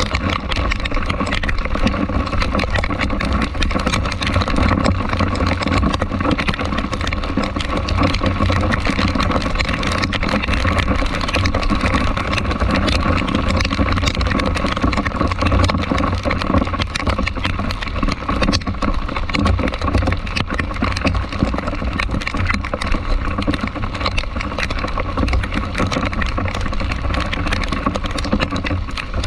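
Steady vehicle engine and road noise in traffic, with a deep continuous rumble and a faint steady whine.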